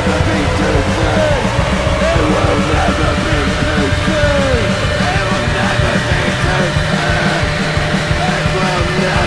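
Loud rock band music in a punk style, with a fast driving beat and wavering pitch slides over it.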